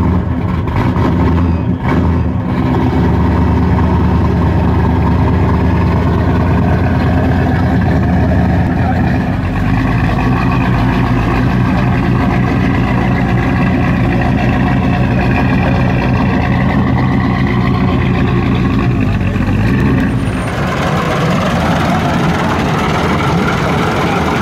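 Pontiac Trans Am's V8 running steadily through its quad exhaust, with a deep, even note that shifts slightly about ten seconds in. About twenty seconds in, the sound changes abruptly to a different, rougher-running engine: an antique open car.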